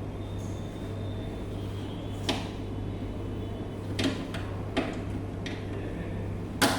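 Sharp clicks and knocks at irregular intervals, about five of them, the loudest near the end, over a steady low hum: parts of a blood-bank platelet agitator being handled during repair.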